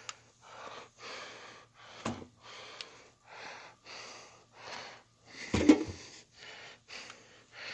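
Clothes being pushed by hand into a front-loading washing machine drum: a run of short rustling swishes of fabric, about one or two a second, with a louder bump about five and a half seconds in.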